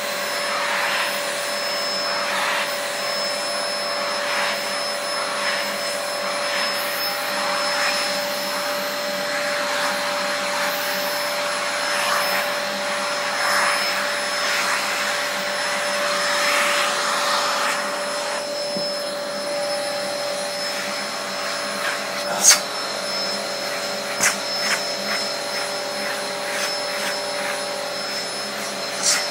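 Vacuum cleaner running steadily with a whine over its rush of suction, the rush swelling and fading as the hose nozzle is drawn over a cat's fur. A few sharp knocks sound in the last several seconds.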